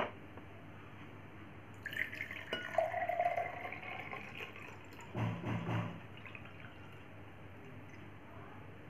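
Water poured from one drinking glass into another, splashing into the empty glass with a ringing pitch that shifts as it fills, then thinning to a quiet trickle. It is clear water being decanted off sand settled at the bottom of the first glass.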